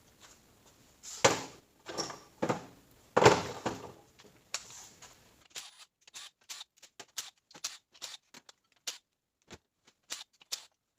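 A series of knocks and light clicks: several louder knocks with short rustling tails in the first half, then a quicker run of sharp, thin clicks.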